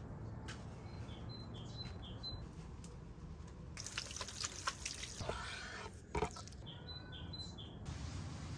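Small birds chirping in short repeated notes, with a spell of dense crackling and clicks around the middle and a single thump just after six seconds. Near the end a steady hiss sets in.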